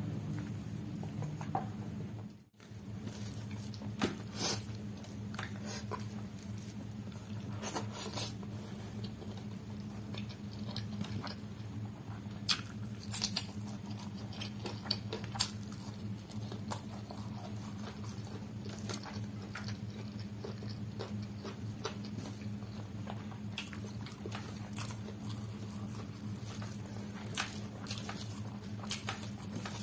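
Close-miked eating of chicken curry and rice: wet chewing with scattered sharp mouth clicks and smacks, and squishing as fingers mix rice and gravy on a steel plate, over a steady low hum. The sound drops out briefly about two and a half seconds in.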